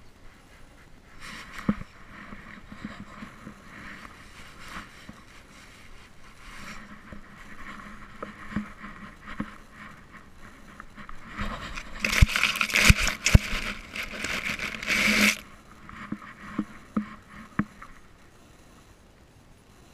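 Scraping and rubbing from a GoPro in its housing strapped to a dog, as the harness and camera shift against the dog, with scattered knocks. The noise is louder for a few seconds past the middle, with several sharp knocks.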